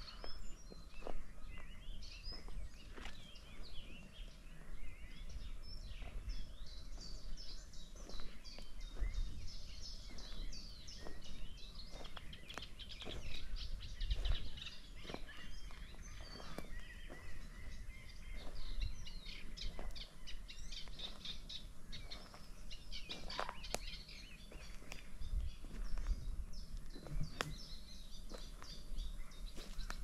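Several small songbirds singing and chirping at once in a busy, continuous chorus, with occasional low thumps underneath.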